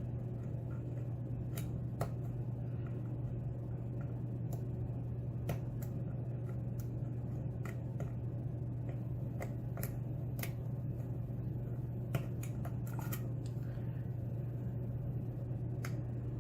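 Light metallic clicks and scrapes of a steel hook pick working the pins inside a Den Brass Schlage-keyway pin-tumbler lock held under a top-of-keyway tension bar, irregular and spread over the whole stretch, over a steady low hum.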